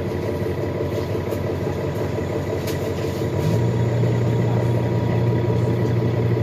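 2021 Nova Bus LFS hybrid transit bus heard from inside: a steady low engine hum, which grows louder and deeper about three and a half seconds in.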